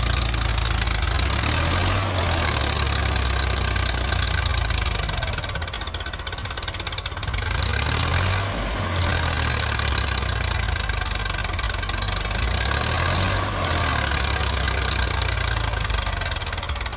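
Swaraj 855 FE tractor's three-cylinder diesel engine running steadily under heavy load, hauling a fully loaded sand trolley out of soft sand where it is stuck. The engine eases for a couple of seconds about six seconds in, then picks up again.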